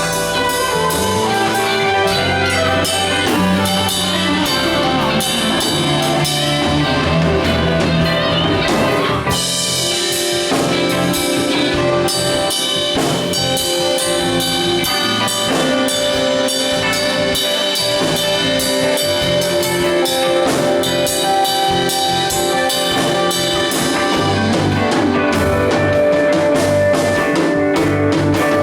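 Live band playing an instrumental jam: drum kit keeping a steady beat under bass guitar, guitar and keyboard, in a jazz-leaning groove.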